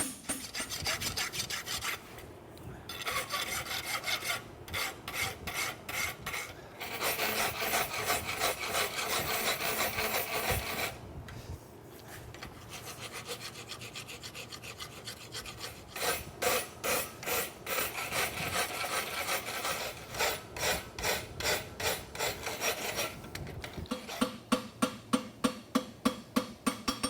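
A hand file rasping back and forth over a steel horseshoe in repeated strokes while the shoe is cleaned up and blended. Near the end the strokes become shorter and quicker, about three or four a second.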